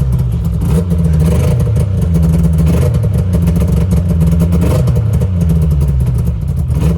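Freshly rebuilt Yamaha Venture snowmobile two-stroke engine running steadily just after starting for the first time since the rebuild.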